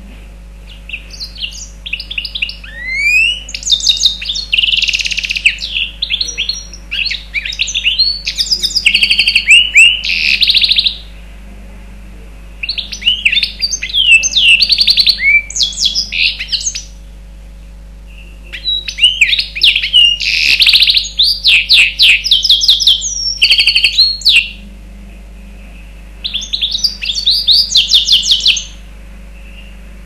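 Mozambique serin × canary hybrid (mule) singing: four bouts of fast, high twittering song made of rapid trills and short rising notes, with brief pauses between bouts.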